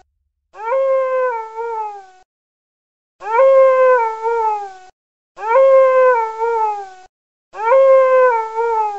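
A jackal howling in pain: the same wavering, falling howl repeated four times, each call about a second and a half long with short gaps between.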